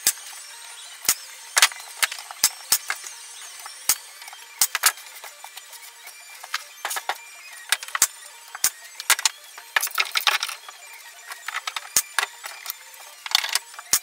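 Pneumatic brad nailer firing nails into 3/4-inch poplar plywood, a string of sharp, irregularly spaced shots, with the panels knocking as they are handled.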